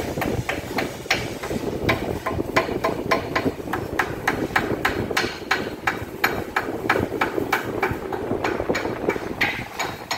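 Rhythmic metallic knocking, about three knocks a second, over the steady hum of a running machine tool.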